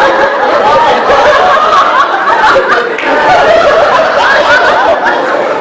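A group of people laughing and chattering over one another, with many voices overlapping.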